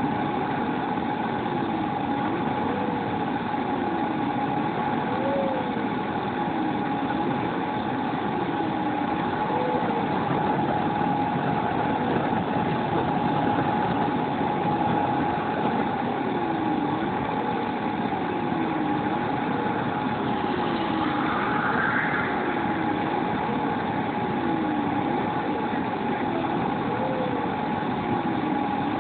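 Turbine of a JetMach Sport 60 model jet idling, heard close up: a steady high whine over a lower tone that wavers up and down every second or two.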